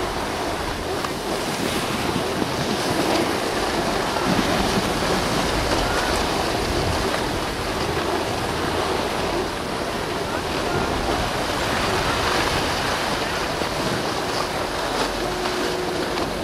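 Steady rushing wind on the microphone of a camera carried by a skier going downhill, mixed with the hiss of skis sliding over packed snow.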